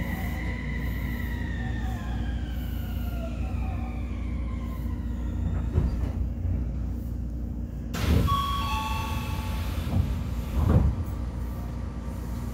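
Odakyu 3000-series train's Mitsubishi IGBT VVVF inverter whining under braking, its tones falling in pitch as the train slows to a stop, heard from inside the car. About eight seconds in, a hiss of air and a two-tone door chime as the doors open, with a thump near the end.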